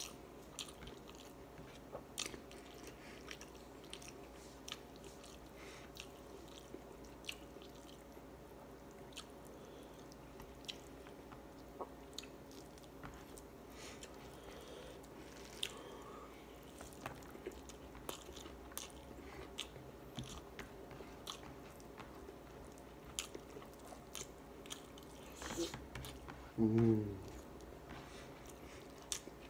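Close-up mouth sounds of a man eating rice by hand: steady chewing with many small wet smacks and clicks. Near the end a brief voiced sound comes from him, the loudest moment.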